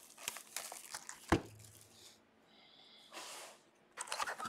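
Plastic shrink-wrap crinkling and tearing as it is ripped off a Topps Stadium Club baseball card box. There is a single knock about a second and a half in, a short rustle near the three-second mark, and more crinkling near the end.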